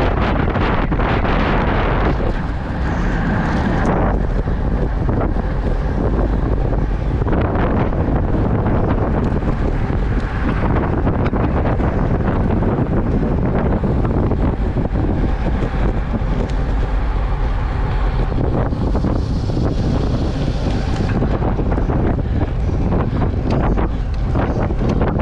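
Steady wind rushing over the microphone of a camera on a road bike ridden at about 35–40 km/h.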